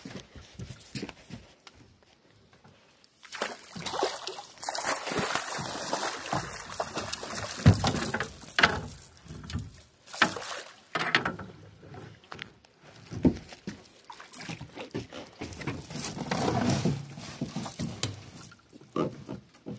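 Water splashing as a blue catfish is fought and netted beside a boat, followed by knocks and rattles as the fish flops in the landing net on the boat's deck. One loud knock comes about eight seconds in.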